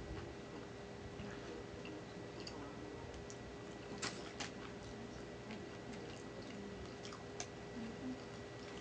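Quiet chewing of barbecue pork ribs, with soft wet mouth sounds and a few faint clicks as the ribs are handled, the sharpest two about four seconds in, over a steady low hum.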